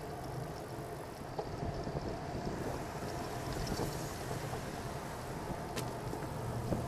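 Street traffic and road noise heard from a moving bicycle: a steady rumble of cars and tyres, with a brief tick near the end.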